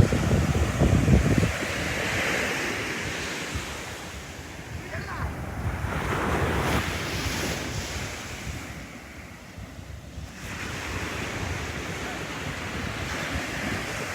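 Sea waves breaking and washing up a sandy beach, swelling and fading every few seconds, with wind buffeting the microphone, heaviest in the first second or so.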